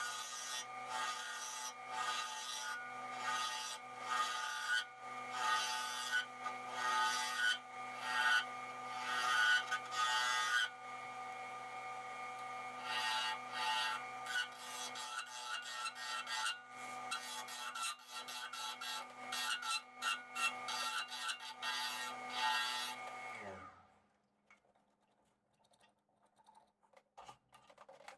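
Wood lathe running with a steady hum while a turning tool rasps against the spinning alder in repeated strokes, several a second. About 23 seconds in the lathe is switched off and its hum winds down and stops.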